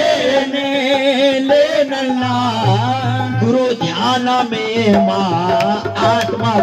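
A man singing a devotional Sufi kalaam, with long held notes that waver in pitch, over a steady low drone and hand-drum strokes.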